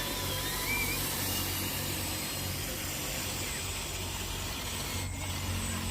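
An engine running steadily at idle, a low, even hum, with faint voices in the background.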